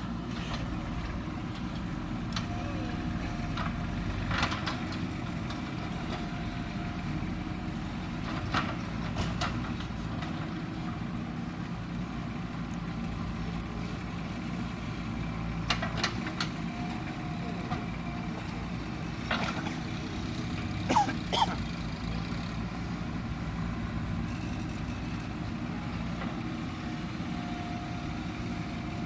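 JCB backhoe loader's diesel engine running steadily while it digs and loads soil, with sharp knocks and clanks every few seconds, the loudest pair about 21 seconds in.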